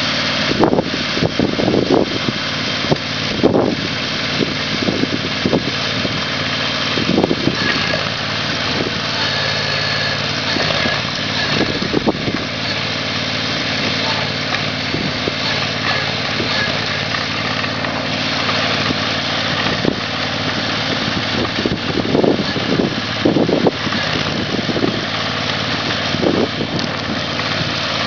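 Shannon Solo remote-control loader's engine running steadily while it drives an Augertorque 1200 hydraulic earth auger boring a post hole. Irregular louder surges come in the first few seconds and again toward the end.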